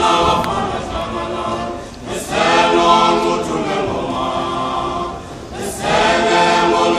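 Male a cappella choir singing isicathamiya in close harmony, in sustained phrases that fade and swell again about two and six seconds in.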